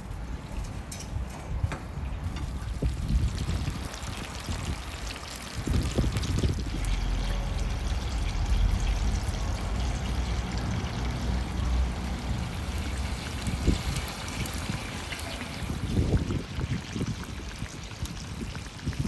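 Liquid bubbling in a large wok as pieces of lamb testicles cook in it over a wood fire, a steady bubbling and trickling. A low rumble joins in from about six to nine seconds in.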